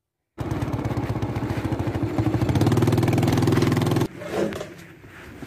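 Motorcycle engine running steadily while riding, heard close up, getting a little louder about halfway through. It cuts off suddenly about four seconds in, leaving faint background sound.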